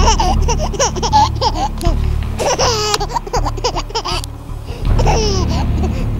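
High-pitched laughter, breaking into quick runs of notes that rise and fall in pitch, over a low steady rumble.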